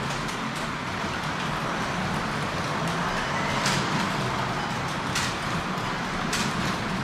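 Carrera Digital 1/24 slot cars running on the track: a steady electric-motor whir and the hiss of pickup braids on the rails, with a few brief, sharper swishes now and then.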